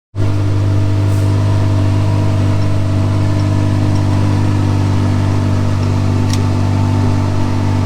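Diesel engine running steadily at a constant speed, with a faint click about a second in and another about six seconds in.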